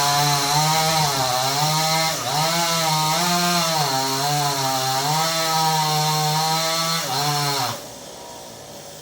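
Maestro chainsaw running at high revs, its pitch dipping and recovering again and again as it cuts into branches. It drops off abruptly about eight seconds in.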